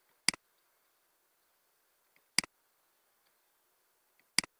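Three sharp computer mouse clicks, about two seconds apart.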